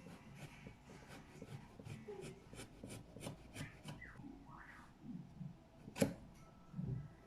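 Faint rubbing and scraping with scattered light clicks, and one sharper knock about six seconds in.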